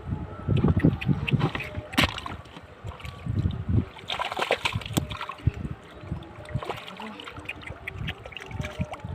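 Irregular splashing and sloshing in shallow flood water, with sharp slaps and clicks scattered throughout, busiest near the start and again around the middle.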